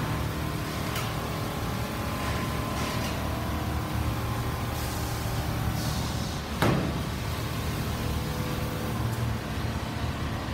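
Factory din of industrial quilting machines running: a steady low hum with a few faint steady tones, a couple of brief hisses about halfway through, and one sharp knock about two-thirds of the way in.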